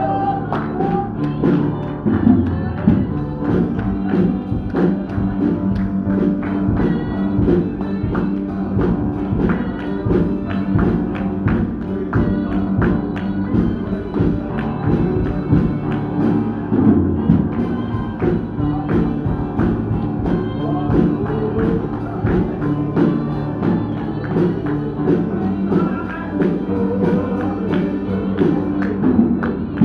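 Live gospel music with a steady beat, a tambourine shaking along and voices singing.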